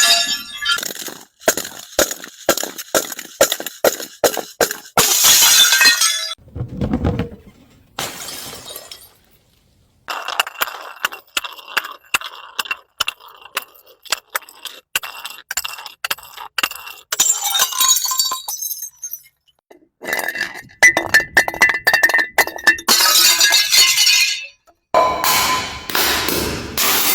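Glass bottles being crushed: many sharp cracks and crunches with several loud shattering bursts, and a short pause about nine seconds in.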